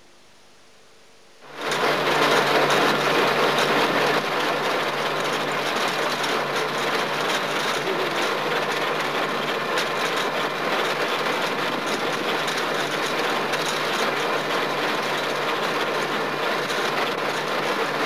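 Standen Statesman potato harvester's separating rollers running: a dense, steady clatter of potatoes, clods and machinery rattling. It cuts in suddenly about a second and a half in.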